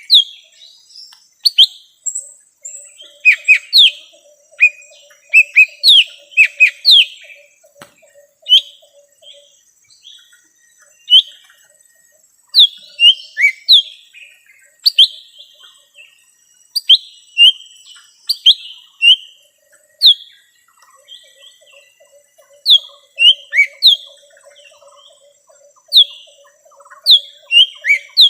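Lesser green leafbird (cucak ijo mini) calling: rapid runs of sharp, downward-slurred whistled notes in short bursts with brief pauses, the kind of call used as a lure to bring in wild birds.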